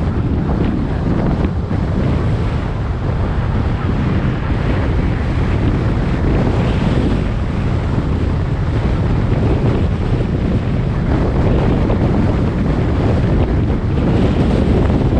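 Steady wind buffeting a camera microphone on a car driving at highway speed, a constant low rumble with no breaks.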